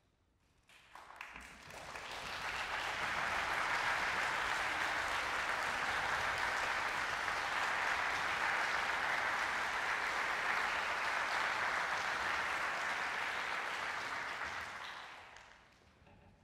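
Concert audience applauding to welcome the conductor onto the podium before the performance. The clapping starts about a second in, swells to a steady level, and dies away near the end.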